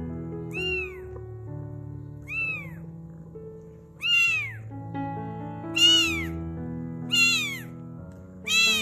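Newborn British shorthair kitten mewing: six short, high-pitched cries that each rise and fall, louder in the second half. Background music with held notes plays underneath.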